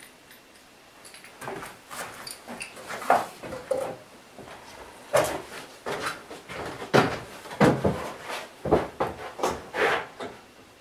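Wood being handled: irregular knocks, bumps and rubbing of wooden pieces. They begin about a second and a half in and stop just before the end.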